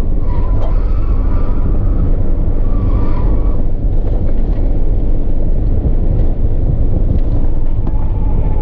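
Car being driven at speed: a loud, steady rumble of engine, tyre and wind noise heard from inside the cabin.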